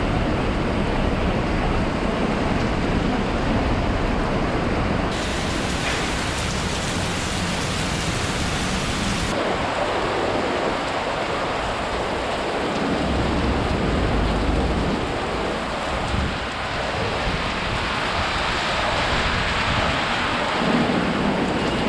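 Steady heavy typhoon rain with gusting wind, with deep rumbles rising and falling now and then.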